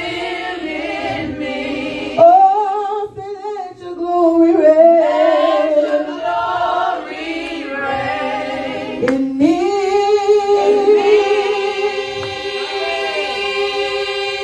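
A woman's solo gospel singing voice through a handheld microphone, with long held notes and notes that bend and slide, including one long sustained note near the end.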